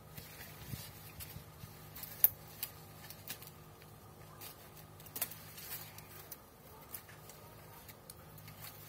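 Faint rustling with scattered sharp clicks and taps, one louder click about two seconds in, over a low steady hum: handling among snake gourd vines during the harvest.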